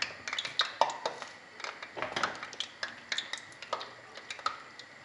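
Balls of puff puff dough deep-frying in hot oil in an aluminium pot, the oil crackling with many irregular sharp pops.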